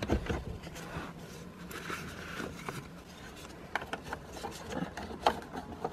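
Faint rubbing and a few light clicks of the Mercedes 190E's plastic instrument cluster being worked back into its dashboard opening by hand.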